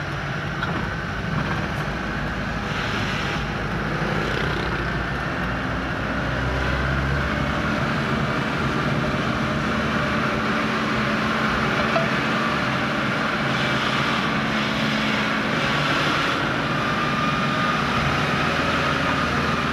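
Sand dump truck's diesel engine running steadily while under way, heard from inside the cab with road noise, growing slightly louder about a third of the way in.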